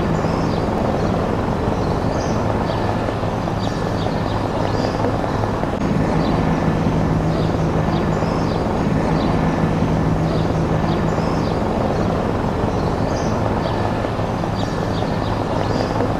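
Low-flying helicopter overhead: a steady rotor and engine drone with low hum tones and a thin steady high whine, and short high chirps over it.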